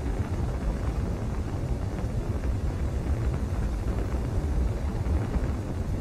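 Sound-designed low rumble standing for a spacecraft's atmospheric entry heard from far off: a steady, deep rumble with a faint airy hiss and no distinct events.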